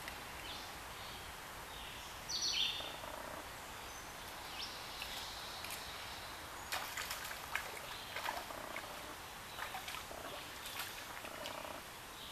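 Woodland birds calling, the loudest a short falling chirp about two seconds in, with other brief calls scattered through. Faint clicks and taps come in clusters from about seven seconds on.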